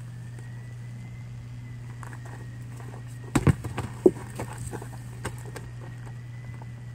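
A few footsteps and knocks from a person moving between field stones on rough ground, loudest about halfway through, over a steady low hum.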